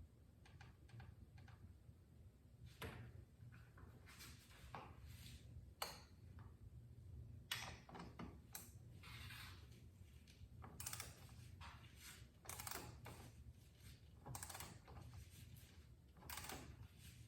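Faint, irregular clicks and scrapes of hand tools being worked during a motorcycle oil change, over a low steady hum.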